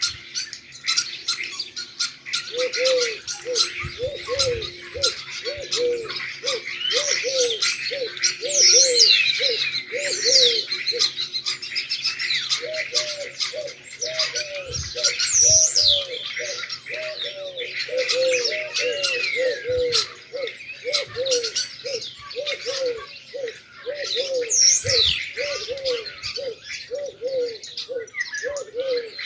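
A busy chorus of birds chirping and twittering, with a low call repeated about twice a second under it.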